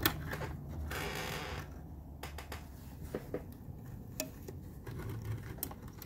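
Goldstar window air conditioner's fan motor spinning down after a click of the rotary control knob: a low hum that slowly fades. A few lighter clicks from the knob follow.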